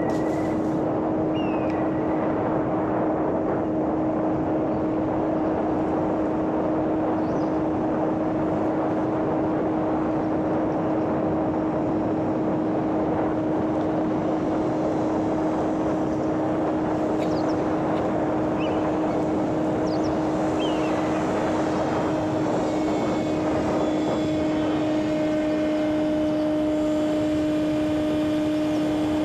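Homemade electric RC airplane's motor and propeller running at a steady throttle in flight: a constant drone over a rush of air.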